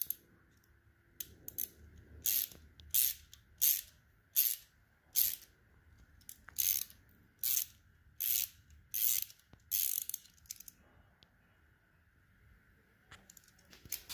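Small hand ratchet clicking in short bursts, about one burst every three quarters of a second, as it works an 8 mm x 1.25 tap to chase a damaged exhaust-bolt thread in the cylinder head. The clicking stops about ten and a half seconds in.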